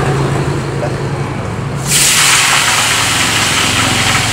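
A motor vehicle engine running with a steady low hum; about two seconds in, a loud steady hiss starts suddenly over it.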